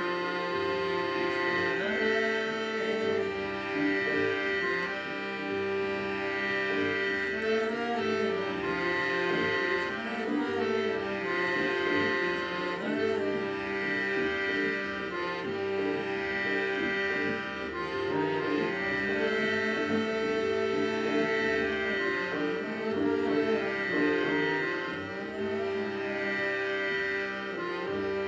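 Hand-pumped harmonium playing a devotional bhajan melody over steadily held drone notes.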